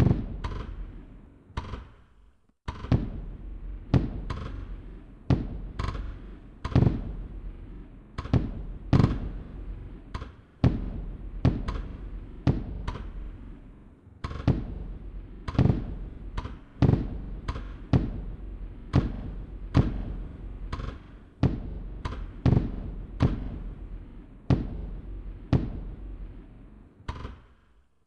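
Fireworks bursting in a steady series, about one bang a second. Each sharp bang trails off in a fading rumble.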